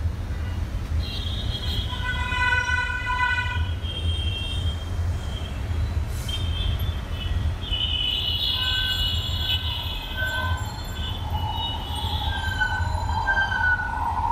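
Steady low rumble of city traffic, with a long horn note about a second in and shorter horn toots later. The running noise of an approaching electric metro train on the elevated track builds up near the end.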